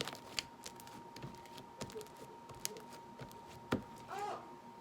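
Slime being squeezed and worked in the hands, giving scattered small sharp clicks and pops about a second apart.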